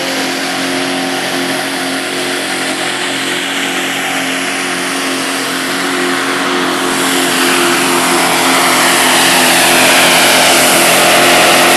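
Diesel pickup truck engine at full throttle, dragging a weight-transfer pulling sled down a dirt track. A steady drone runs under a rush of noise that grows and gets louder through the second half, then drops away abruptly at the very end as the throttle comes off.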